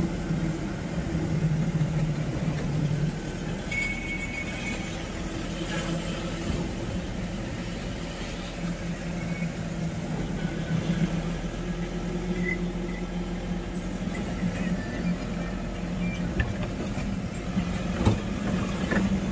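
Motor vehicle driving along a wet road: a steady engine drone over even tyre and road noise.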